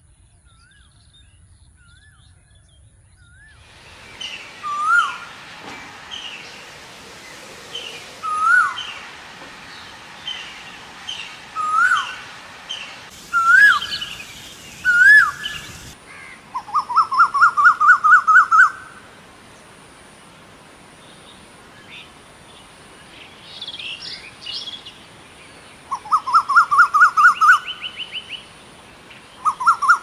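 Birds calling: sharp hooked whistles every few seconds among small chirps, then from about halfway an Asian koel's fast run of notes climbing in pitch, heard three times, the last near the end.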